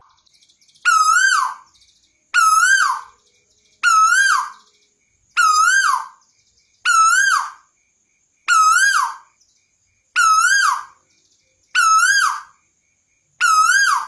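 Caged Asian koel (tuwu) calling. It gives one rising-then-falling whistled note over and over, nine times, about every second and a half.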